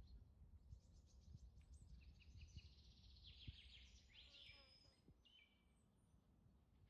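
Faint birds chirping and trilling, busiest in the middle and fading near the end, over a low rumble.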